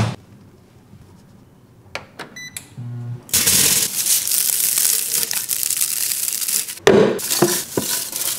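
Dried chive stems and blossoms crackling and rustling as they are crushed and broken up by hand, starting about three seconds in. Before it, a short run of electronic beeps; near the end, a knock and more dry rustling as the stems go into a blender jar.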